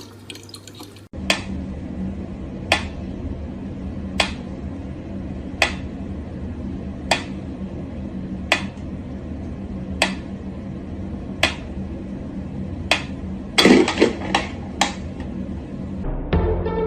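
Sharp clicks or taps repeating evenly about every second and a half over a steady low hum, then a quick run of several clicks close together near the end.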